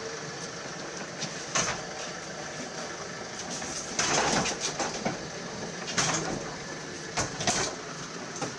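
Clanks and rattles of a metal stretcher trolley carrying an infant incubator as it is pushed into an ambulance: a few sharp knocks, with a longer rattling clatter about four seconds in, over a steady hiss.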